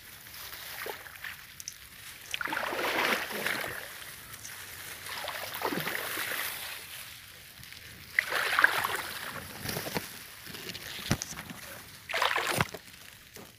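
Someone wading through wet grass and shallow water: grass stems brushing and water sloshing underfoot, coming in several separate swells, with one sharp click about eleven seconds in.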